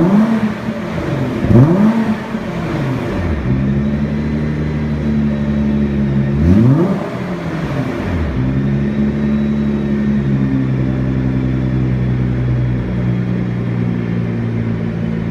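2013 Nissan GT-R Black Edition's twin-turbo V6 idling through its exhaust, blipped twice in free revs, about a second and a half in and again near seven seconds, each rev climbing quickly and falling back to a steady idle.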